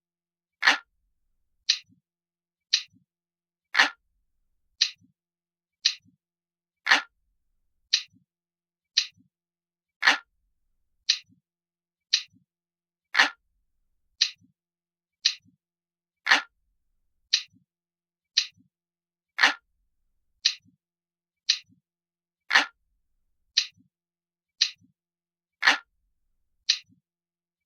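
Clock ticking, about one tick a second, with every third tick louder and deeper than the two lighter ticks between.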